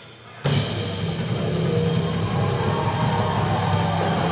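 Live rock band of drum kit, electric guitars and bass crashing back in at full volume about half a second in, after a brief lull in which a single hit rings down, then playing on loudly.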